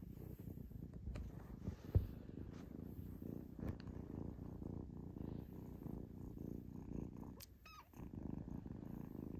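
Black kitten purring steadily up close while being stroked, a low fluttering rumble of contentment. A single sharp click about two seconds in, and the purr breaks off briefly near the end.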